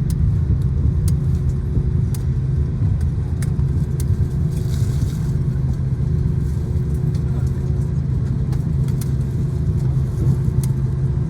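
Airplane's steady low rumble, with a faint steady hum above it and a few light clicks scattered through.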